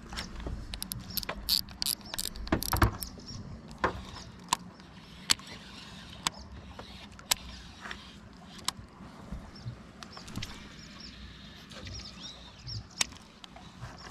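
Daiwa Alphas baitcasting reel being handled and reeled: a flurry of sharp clicks and knocks in the first three seconds, then single clicks about once a second.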